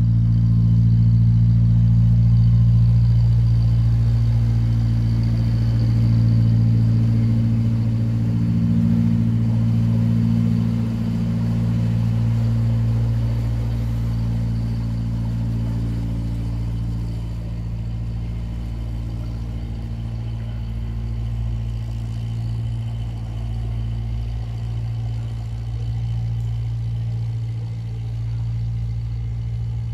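Narrowboat's diesel engine running with a steady low chug as the boat passes close by, growing gradually fainter from about halfway through as it moves away.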